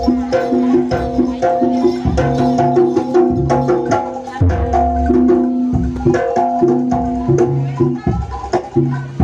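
Live East Javanese jaranan music: a gamelan-style ensemble with fast, sharp drum strikes over repeating pitched metal tones.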